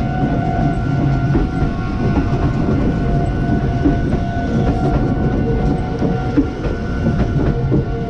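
Meitetsu electric train passing close by at a level crossing, its wheels clattering over the rail joints above a steady rumble, while the crossing's electronic warning bell rings with an even, repeating tone.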